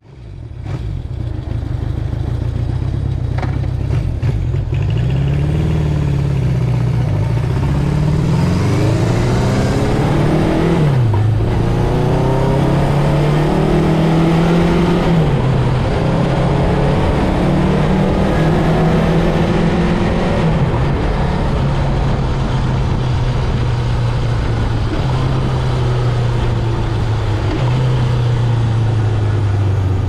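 Honda CB750 Four's air-cooled inline-four engine running at idle through its exhaust, with several short throttle blips in the middle that raise the revs and let them fall back.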